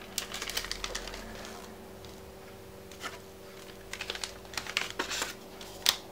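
Paper leaflets and a warranty card being handled and leafed through: crisp rustles and light ticks in small clusters, the sharpest one near the end, over a faint steady hum.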